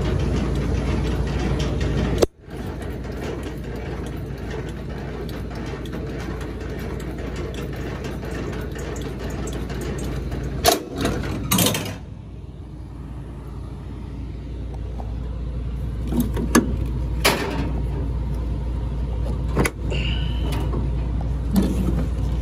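Diesel semi truck idling steadily, with a few sharp metallic knocks and clanks in the second half.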